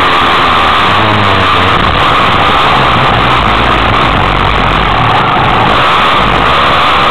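Motocross dirt bike's engine heard from an onboard camera, loud, its pitch rising and falling as the rider works the throttle through the gears, under a thick rush of wind and track noise.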